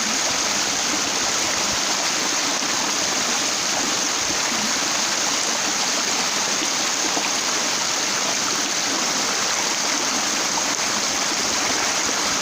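Stream water flowing steadily over rocks, an even, unbroken rush with no pauses.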